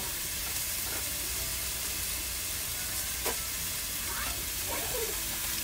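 Food sizzling on a barbecue grill: a steady hiss over a low hum, with a single click about three seconds in.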